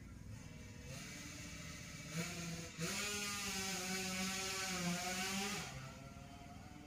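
Road traffic: a motor vehicle's engine passing by. Its hum grows from about a second in, is loudest for about three seconds, then drops in pitch and fades away.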